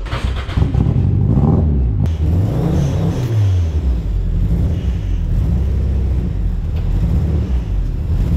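Nissan 240SX's swapped Japanese-market SR20DET turbocharged four-cylinder, a cold start just caught, revved up and back down twice and then settling into a steady idle.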